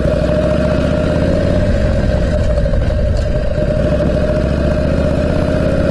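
Harley-Davidson Panhead V-twin engine running steadily under way, its pushrods freshly repaired, with a steady whine above the exhaust note.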